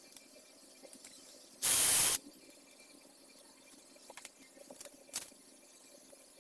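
A single short burst of hissing air noise, about half a second long, a little under two seconds in, followed by a few faint clicks of the plastic panel being handled.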